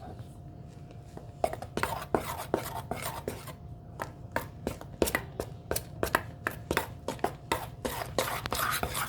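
A utensil knocking and scraping against a mixing bowl as slime is stirred: a quick, uneven run of clicks, a few a second, starting about a second and a half in.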